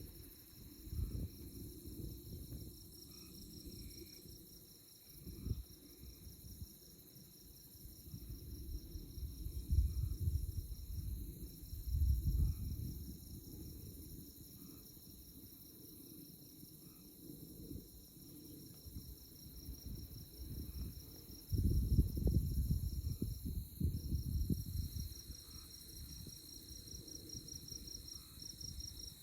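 Chorus of crickets and other night insects in tallgrass prairie: a fast, even, high trill that breaks off briefly twice, over a steady high drone and faint scattered chirps. Gusts of low rumble from wind on the microphone come and go and are the loudest part.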